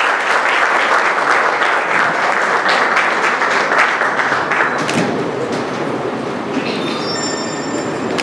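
Audience applauding for about five seconds, then the clapping dies away into a lower, steady room noise, with a few faint high tones near the end.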